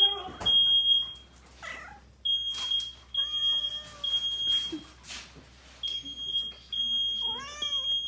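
Smoke detector sounding its alarm: a high steady beep repeated in groups with short pauses between them. A cat meows loudly over it, about three seconds in and again near the end.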